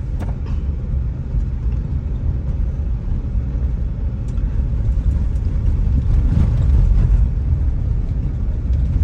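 A moving car's road noise heard from inside the cabin: a steady low rumble of tyres and engine, with a few faint light knocks.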